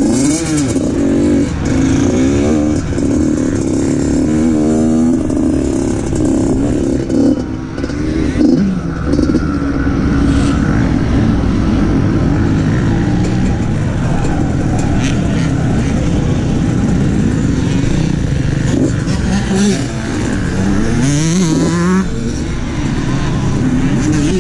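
Dirt bike engine running at low speed, mostly steady, with several short throttle blips that sweep its pitch up and back down.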